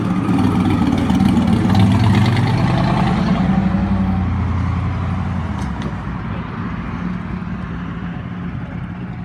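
Drag car's engine running loud as it drives slowly past, building to its loudest a second or two in and then fading as it moves off.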